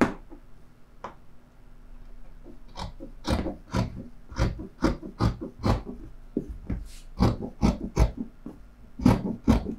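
Scissors snipping through several layers of folded fabric, one short crunching cut after another at about two a second, starting about three seconds in.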